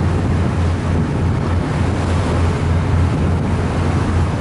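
Wind buffeting the microphone on the deck of a moving cruise boat, with a steady rush of water and a low, uneven rumble.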